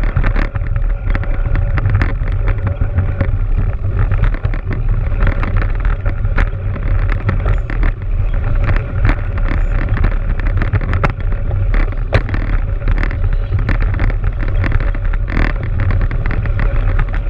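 Wind rumbling on a mountain bike rider's action-camera microphone while riding over snow, with a constant rattle and scatter of clicks from the bike.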